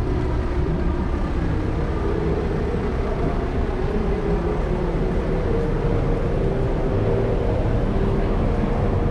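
A vehicle running: a steady low rumble with a held hum over it.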